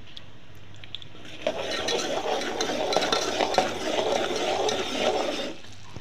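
Bubbling sugar syrup stirred in a metal pot with a perforated metal skimmer: a dense bubbling and scraping with small clinks of metal on the pot, starting about a second and a half in and dying away near the end. The syrup is cooked to its thread stage.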